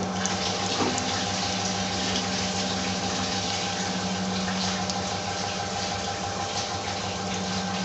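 Egg omelette frying in hot oil in a pan: a steady sizzle with fine crackling, over a steady low hum.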